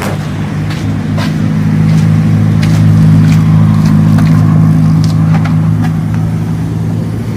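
A vehicle engine running at a steady speed, growing louder toward the middle and easing off again.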